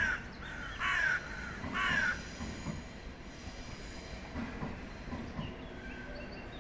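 Three loud bird calls about a second apart, over the steady low rumble of a passenger train crossing a railway bridge overhead.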